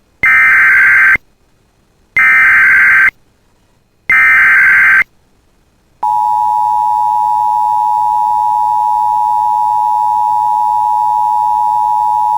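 Emergency Alert System alert opening: three SAME header data bursts, each a buzzy electronic warble about a second long with a second's gap between them. About six seconds in, the steady attention-signal tone begins and holds.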